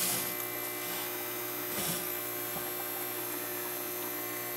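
Steady electrical hum from an inverter-charger running an equalize charge on a bank of flooded lead-acid batteries.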